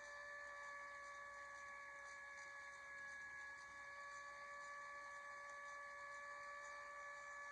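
Hand-crank Federal siren wailing at a steady pitch, a faint single tone with overtones that barely rises or falls.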